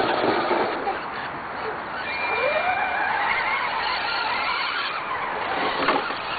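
Electric motor and gearbox of a radio-controlled scale rock crawler whining as it drives over rough ground, the whine rising in pitch from about two seconds in.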